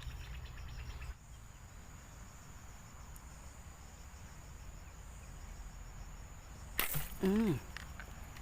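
Insects, such as crickets, chirring steadily in a high thin tone over the outdoor background. Near the end there is a sudden loud rustle, then a short vocal sound that rises and falls.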